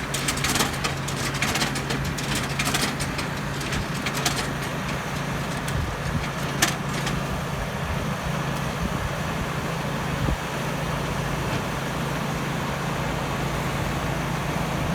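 Hattat tractor's diesel engine running at a steady speed. Clattering is heard over it for the first four seconds, and a single sharp knock comes about six and a half seconds in.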